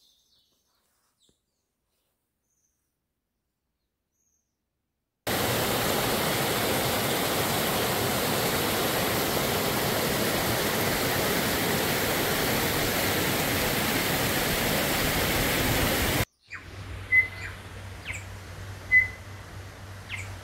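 Silence for about five seconds, then a river's white-water rapids rushing over boulders: a loud, even rush that cuts off abruptly about sixteen seconds in. Then a quieter background with a low steady hum and a few short, high bird chirps.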